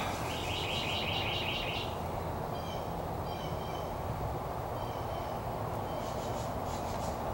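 Small birds chirping: a quick run of about eight repeated chirps in the first two seconds, then scattered short, high calls, over a steady low background noise.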